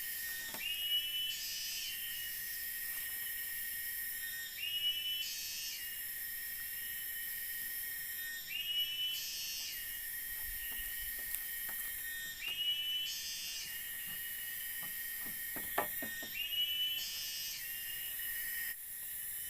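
Night forest: a steady insect drone, with an animal call repeated five times about four seconds apart, each a short run of whistled notes followed by a buzzy rasp. A few light knocks come about three-quarters of the way through.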